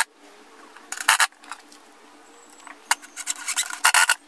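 Cordless drill driving screws through a steel concealed cabinet hinge plate into a pine board, in three short bursts: about a second in, near three seconds and around four seconds.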